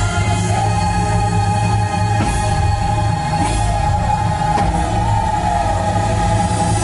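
Fireworks-show music holding one long sustained note over a steady low bass.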